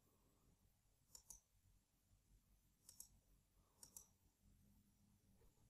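Faint computer mouse clicks: three quick double ticks of the button pressed and released, about a second apart, as the installer's Next button is clicked.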